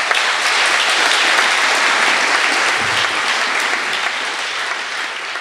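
Large audience applauding in a hall, a dense steady clapping that slowly tapers off toward the end.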